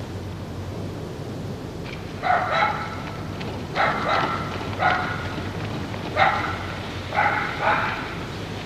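A dog barking about eight times in short groups over a steady low rumble.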